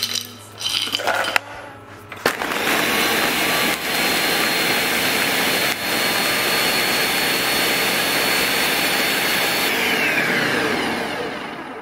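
After a few glassy clinks, a countertop blender starts and runs at full speed, crushing frozen banana, pineapple, spinach and ice into a smoothie: a steady loud grinding noise with a high whine on top. Near the end the motor is switched off and spins down, its whine falling in pitch as it fades.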